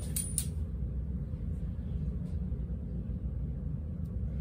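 A quarter clinks twice, with a short metallic ring, as it is flipped and lands just after the start. After that only a steady low rumble is heard.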